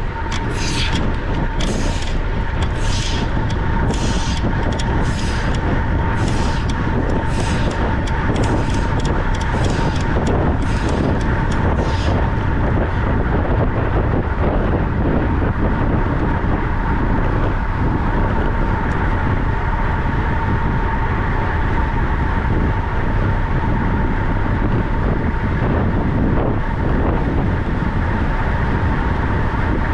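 Wind rushing over the microphone while riding a track bike at speed, a loud steady rush with a steady whine in it. For about the first twelve seconds a hiss repeats about one and a half times a second.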